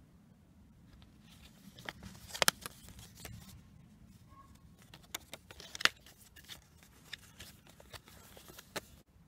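Paper cassette inlay card being unfolded and handled: scattered sharp crinkles and clicks, the loudest about two and a half seconds in and again near six seconds in.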